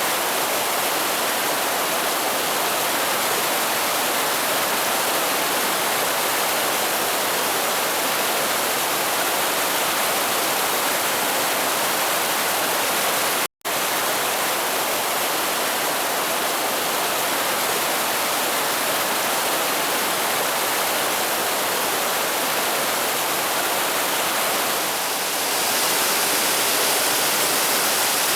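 Steady rush of a mountain headwater stream's flowing water, a dense even hiss. It cuts out for an instant about halfway through, then carries on, a little louder near the end.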